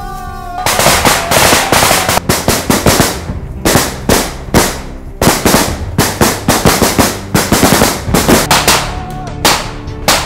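Bursts of automatic gunfire: many rapid, irregular shots starting under a second in and going on to near the end, with background music underneath.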